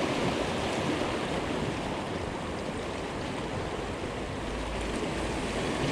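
Seawater washing steadily against a rocky shore: a continuous wash of surf with no distinct breaks.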